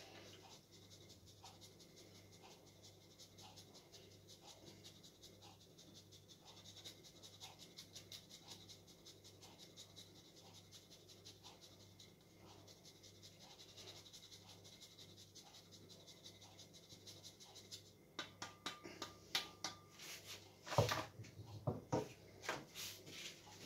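Hard cheese being grated on a metal rasp grater: rapid, fine scraping strokes. Near the end a few louder knocks, as of the grater being tapped or set down.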